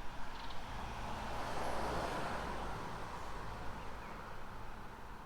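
A road vehicle passing by: its tyre and engine noise swells to a peak about two seconds in and then slowly fades.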